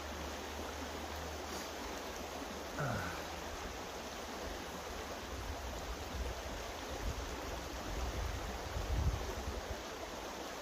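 Steady rushing of a stream. About three seconds in, a short sound slides down in pitch, and low rumbles come and go in the second half.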